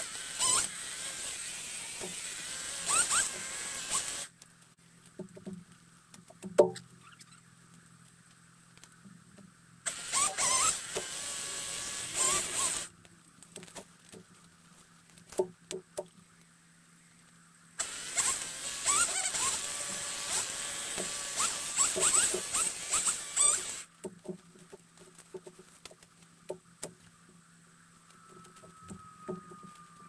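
Small top-handle chainsaw cutting in three bursts, about four, three and six seconds long, in fast-forwarded playback, with faint clicks and knocks between the cuts.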